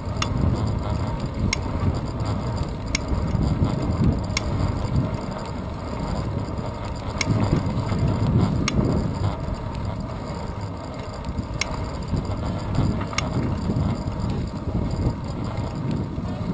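Wind buffeting a handlebar-mounted action camera on a moving bicycle, with a steady low road rumble from the tyres on asphalt. Faint sharp ticks come about every second and a half.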